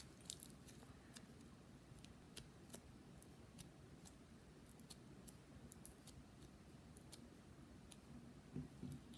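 Faint, irregular little clicks and crackles of a stiff, overactivated slime being squeezed and squished in the hand.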